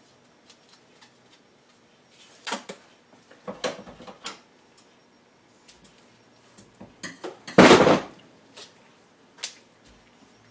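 Hands handling 3D-printed plastic horn parts and tape: scattered light clicks and knocks, with one louder, longer noise lasting about half a second near the end.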